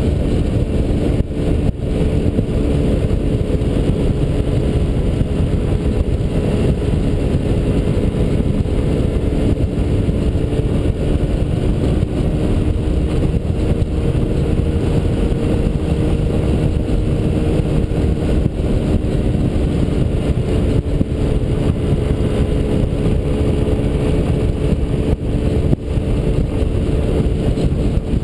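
Honda Elite 80 scooter's small single-cylinder four-stroke engine running at a steady cruising speed, its note holding level throughout, over a constant rush of wind and road noise.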